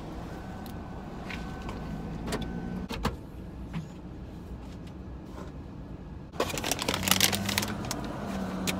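Someone getting out of a parked car and fetching something from its rear. There are a few sharp knocks about two and three seconds in, then loud rustling of clothes against the seat as they climb back in near the end.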